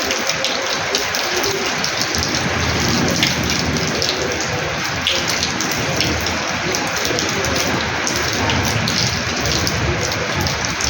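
Heavy rain splashing onto a tiled house terrace floor, a steady dense patter with many small splashes.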